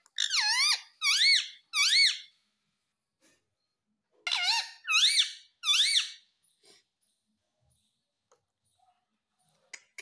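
Indian ringneck parakeet calling: two bursts of three high, squeaky calls, each call rising and falling in pitch, the second burst about four seconds after the first.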